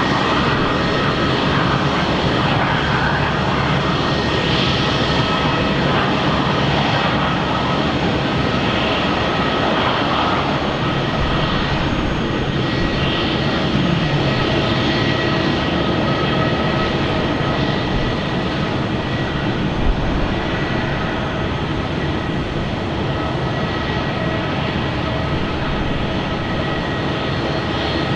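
Airbus A319's twin IAE V2500 turbofan engines running steadily: a loud, even rush of jet noise with a few high, steady whining tones through it.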